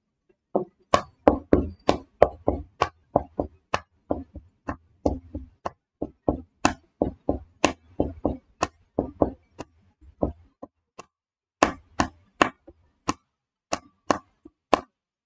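A rapid, irregular series of sharp taps or clicks, about three a second, with a short pause about two-thirds of the way through.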